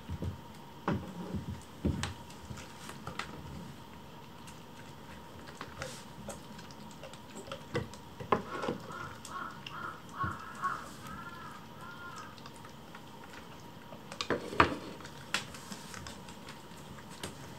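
Small dishes clinking and knocking on a wooden floor as they are set down beside feeding kittens, with the loudest knock a little past the middle. About halfway through, a kitten mews in a short run of small high calls.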